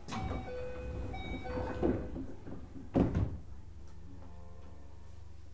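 Passenger doors of a Keio 8000 series train working at a station stop: a click, then the doors sliding, ending in a loud thump about three seconds in. A steady low hum from the standing train follows.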